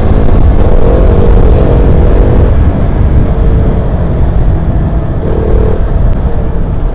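KTM RC 200 single-cylinder engine running as the bike is ridden at road speed, its steady note mixed with heavy wind rumble on the microphone.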